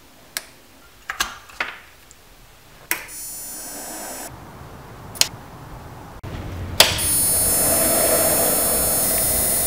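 A few sharp clicks as a headlight wiring connector is snapped together, then an HID projector lamp switched on twice: each time a sharp click followed by a steady electrical buzz with a high whine, the second time longer and louder.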